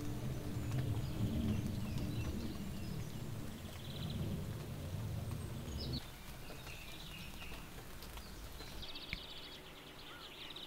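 Birds calling and chirping over a wet morning's outdoor ambience, with a low rumble under the first six seconds that drops away suddenly at a cut, leaving a quieter background and a quick run of trills near the end.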